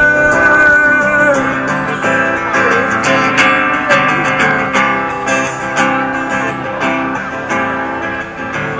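Live band music, led by strummed guitar, with a held note in about the first second.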